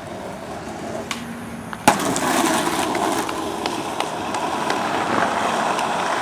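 Skateboard: one sharp clack about two seconds in, then the wheels rolling steadily over asphalt with a rough, grainy noise and a few small clicks.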